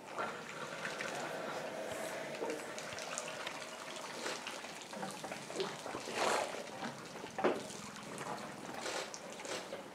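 African elephants drinking at a waterhole: water trickling and splashing as trunks draw it up and pour it into their mouths, with louder splashes about six seconds in and again about a second later.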